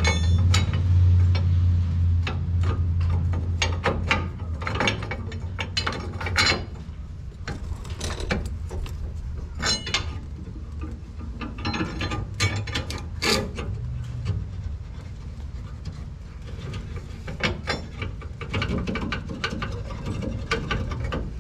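Hand ratchet wrench clicking in irregular runs as the nuts on the rear axle U-bolts are run down. A low hum sounds in the first few seconds.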